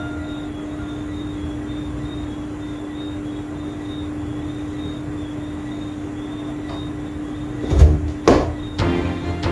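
A steady low hum, then near the end three loud knocks and rattles of the closed door, which opens moments later.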